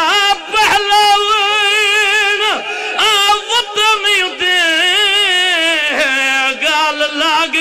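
A man singing a Punjabi mourning lament into a microphone, in long melismatic held notes with heavy vibrato, broken by short pauses for breath between phrases.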